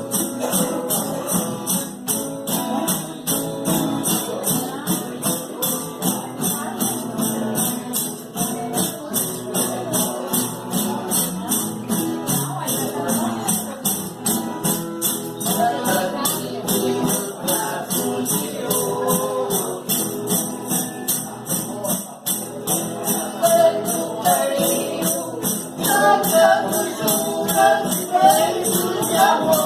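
Folk music with a tambourine shaken and struck in a steady, fast beat throughout, with voices singing over it, most clearly in the last several seconds.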